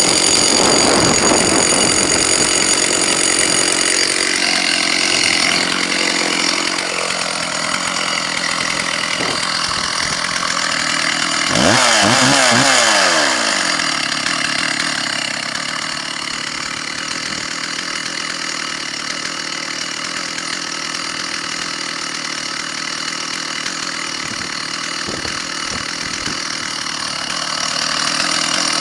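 Stihl 064 two-stroke chainsaw running, mostly at idle, with one short rev that rises and falls back to idle about twelve seconds in.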